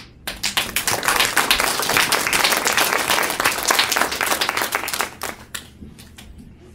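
A room of young children applauding: dense, loud clapping for about five seconds that then thins out to a few scattered claps.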